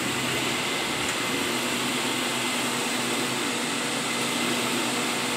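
Steady whir of an Agfa wide-format roll-fed inkjet printer running, with the blowers of its vacuum hold-down table and its fans going.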